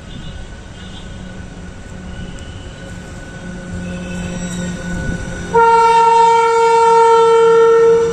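A train approaching with a rising rumble, then its horn blowing loudly about five and a half seconds in, one steady blast held for over two seconds.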